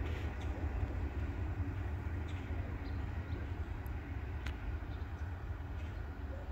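Low, steady rumble of a receding ballast train running far down the line, with a few faint clicks.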